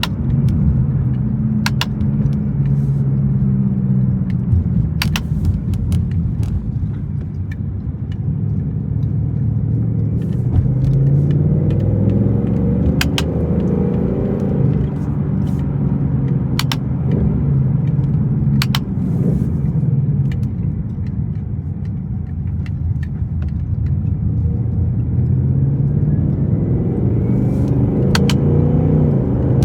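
Car engine running under way, its pitch rising and dropping as it goes through the gears, with sharp clicks from newly fitted steering-wheel paddle shifters every few seconds.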